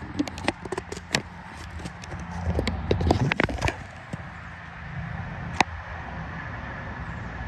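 Phone handling noise on the microphone: scattered clicks and rubbing over a steady low rumble, with one sharp click about five and a half seconds in.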